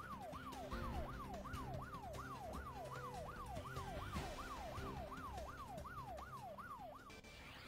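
Siren-style sound effect of a TV 'breaking news' bed: a tone that sweeps down over and over, about three times a second, over a low steady music drone.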